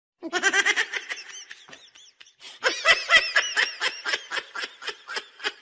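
A person laughing hard in quick, high-pitched bursts, with a short break about two seconds in.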